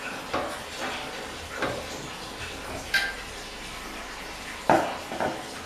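Clicks and knocks of handling on an industrial stand fan as its metal blade is fitted onto the motor hub and the fan is set running, over a steady airy hiss. The loudest knock comes near the end, followed by a smaller one.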